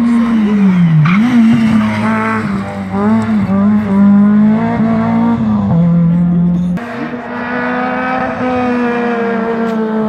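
Rally car engine revving hard on a stage, its note repeatedly climbing, falling back and stepping down as the driver works through the gears and lifts off.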